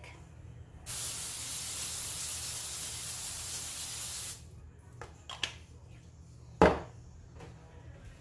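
Aerosol can of nonstick cooking spray hissing in one steady burst of about three seconds onto a foil-lined baking sheet. A few light clicks and then a single sharp knock follow.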